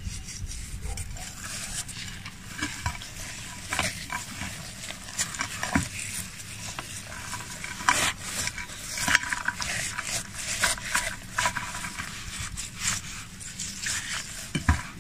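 Hands rubbing seasoning into the skin and cavity of a raw, plucked guinea fowl: irregular wet slapping and gritty scraping as the bird is worked and turned.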